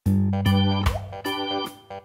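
Background music: held chords that change about every half second, fading near the end.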